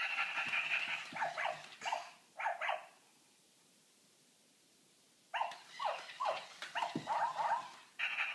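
Puppy giving high-pitched yips and whines in two spells of a few seconds each, with a quiet pause between them.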